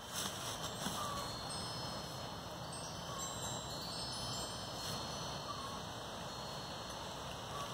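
Light, high chiming tones ringing on and off over a low steady rumble.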